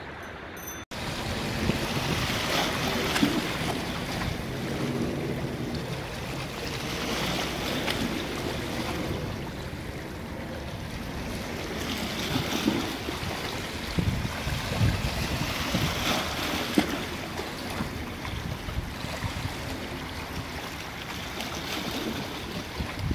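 Sea waves washing against the shore, swelling and falling back every few seconds, with wind gusting on the microphone. There is a short drop in the sound about a second in.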